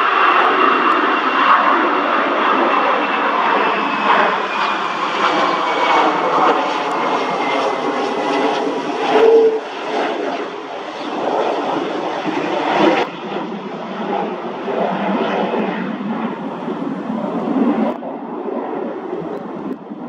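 Lockheed Martin F-22 Raptor flying low overhead on approach with its landing gear down, its twin turbofan engines giving a steady jet rush. A high whine over it falls slowly in pitch during the first several seconds as the jet passes.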